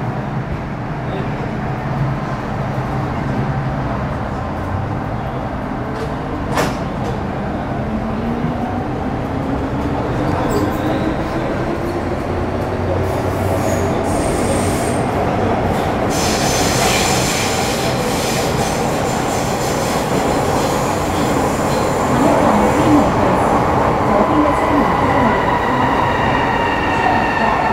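Metro Cammell M-Train electric multiple unit with a GEC GTO chopper running, its traction whine rising steadily in pitch for the first half as it gathers speed. From the middle on, a high, thin squeal rides over the running noise, and near the end the tones glide slowly down.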